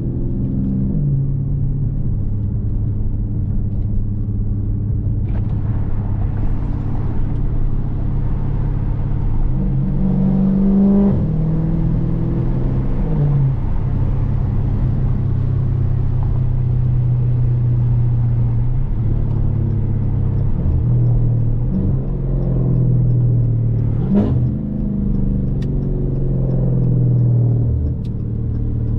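Dodge Challenger Scat Pack's 392 (6.4-litre) HEMI V8 running under way, heard from the driver's seat. The engine note mostly holds a steady cruise, and its pitch steps up and down several times as the car speeds up and shifts gears.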